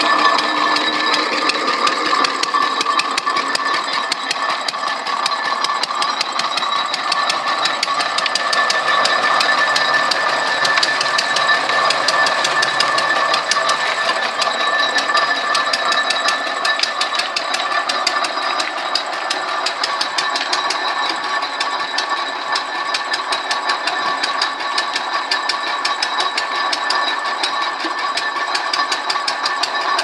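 A 1942 Liner concrete mixer running on its R.A. Lister stationary engine, with a rapid, even mechanical clatter and a few steady tones over it. The old mixer is still in working order.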